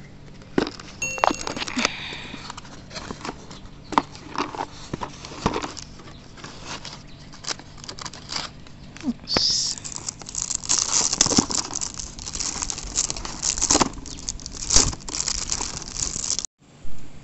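Handling and opening a cardboard box, with scattered rustles and clicks of the flaps, then clear plastic film wrap crinkling steadily from about ten seconds in as it is pulled at around the container inside.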